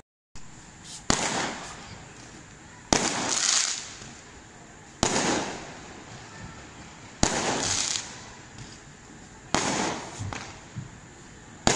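Fireworks bursting: six sharp bangs about two seconds apart, each trailing off over about half a second.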